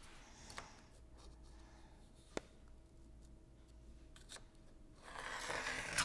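Quiet hand-work on a clay slab laid on paper against a wooden ruler: a single light tap a little over two seconds in, then a scraping rustle about a second long near the end.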